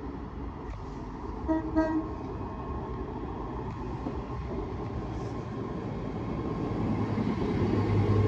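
Class 385 electric multiple unit sounding two short toots on its horn about a second and a half in as it runs into the station. Its rumble then grows louder as the train draws alongside near the end.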